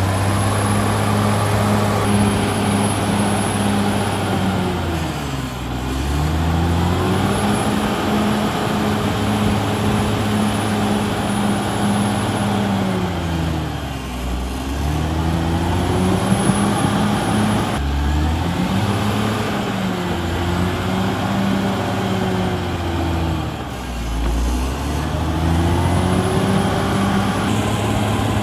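Caterpillar D6R XL bulldozer's diesel engine working hard. Its pitch drags down and recovers several times as the machine comes under heavy load, with a faint high whine above the engine note.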